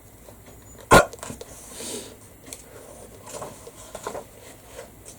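A single short, sharp 'hic!', a person's voice imitating a hiccup, about a second in, followed by faint quiet sounds.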